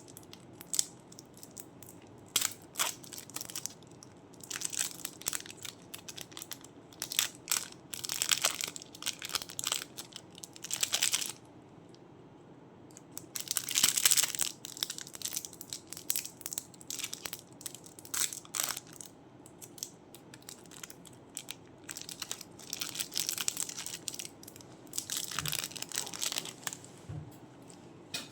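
Crunchy clay being crushed and squeezed by hand, crackling in irregular bursts of one to two seconds with short pauses between.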